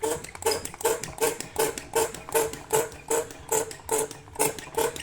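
Hand pump being worked fast and evenly at nearly three strokes a second, each stroke a short squeaky hiss. It is drawing a vacuum on the snowmobile engine to check that it holds without leaking.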